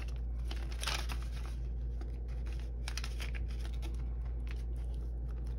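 Paper banknotes rustling and crinkling as a small stack of bills is handled and tucked into a clear plastic pocket of a cash-envelope binder, a little louder about a second in. A low steady hum runs underneath.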